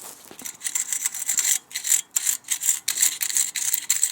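A brush scrubbing a car's brake caliper in quick back-and-forth strokes, cleaning off road grime and brake dust.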